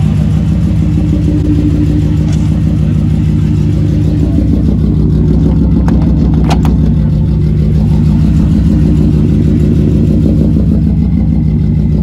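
1992 Mercedes 190E's inline-six idling steadily through a loud aftermarket exhaust. The owner says the engine has a misfire. A sharp click comes about six and a half seconds in.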